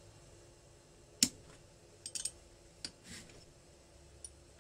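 Small steel spanners clinking against a pair of locked nuts on a cylinder stud as the nuts are slackened and taken off. There is one sharp metal click about a second in, then a few lighter clinks.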